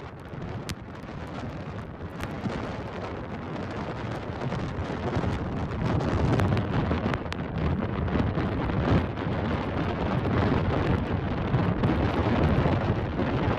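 Hurricane wind buffeting the microphone in a heavy, rumbling roar over surf breaking across a flooded road; it grows louder about halfway through.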